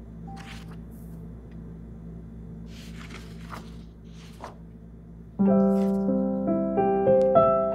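Film score: a quiet, low held drone, then about five seconds in a piano comes in much louder, picking out single notes over a held low note.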